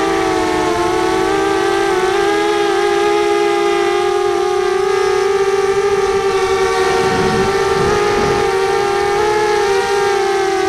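Small racing quadcopters' motors and propellers whining at a steady high pitch. Several close tones drift slightly up and down together.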